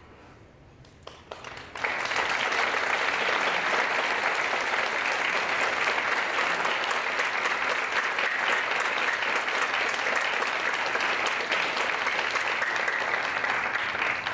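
Audience applauding a finished orchestra piece: a few scattered claps about a second in, then full, steady applause from about two seconds in that starts to thin out at the very end.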